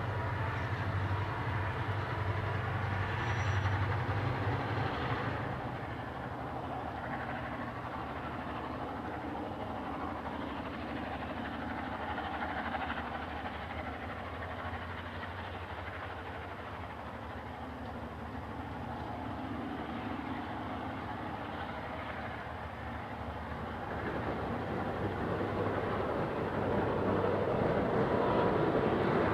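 EMD-engined diesel locomotives (GM and ALF classes) running under load with a freight train, a deep steady engine drone. It is loudest in the first few seconds, eases after about five seconds, and grows louder again near the end.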